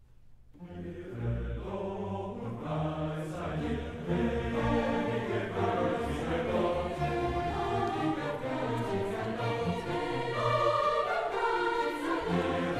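Background music with choral voices, fading in during the first second.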